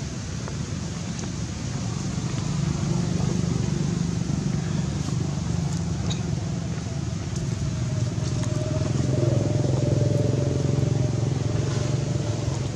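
Steady low engine hum from a motor running nearby, growing louder about two seconds in and again around nine to ten seconds, with a faint higher tone over its louder stretch.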